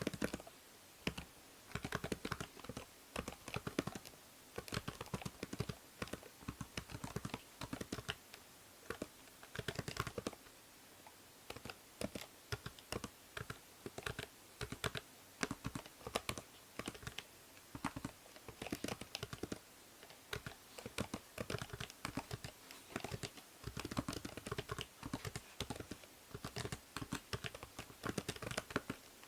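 Typing on a computer keyboard: quick runs of keystrokes in irregular bursts with short pauses between them, over a faint steady hiss from the binaural microphone.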